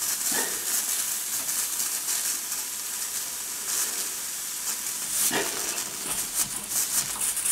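Steam hissing steadily from a homemade model steam engine that leaks quite a lot, as its flywheel is turned over by hand while the engine warms up and is not yet running on its own. Two short louder sounds break the hiss, about half a second in and about five seconds in.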